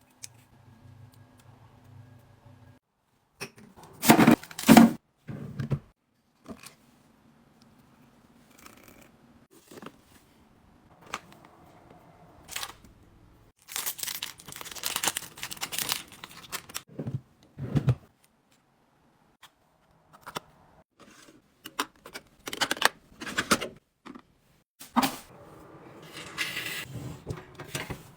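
Close-up handling sounds of unpacking and arranging products: packaging rustling and tearing, with irregular clicks and taps as containers are opened and set down. A faint low hum runs for the first three seconds or so and then stops.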